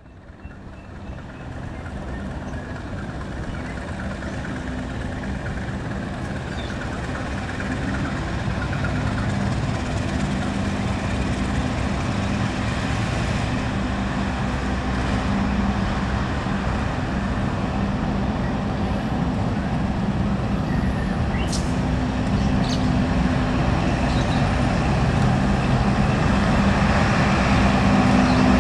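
CC 201 diesel-electric locomotive engine running under load as it pulls a passenger train out of a station, a steady low drone with a constant hum, growing gradually louder.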